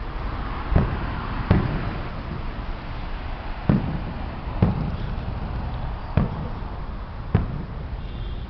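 Fireworks exploding: six separate booms at uneven intervals, over a steady low background rumble.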